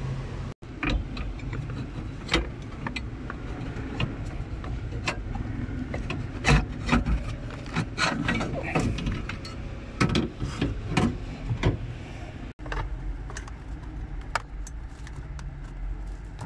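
Irregular clicks, knocks and scraping as hands handle and work the metal accelerator pedal assembly and its bracket under a car's dashboard, over a low steady hum.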